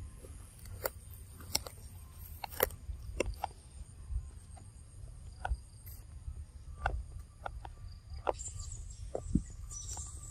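Outdoor forest ambience: a steady high drone of insects under a constant low rumble, with scattered sharp clicks and crackles every second or so.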